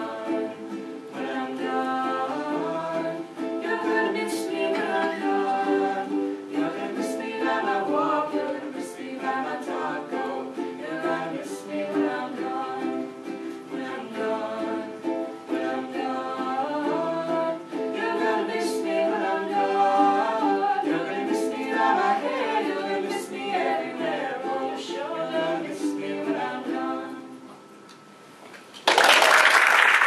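Voices singing in harmony over strummed ukuleles. Near the end the song dies away, then louder applause breaks out.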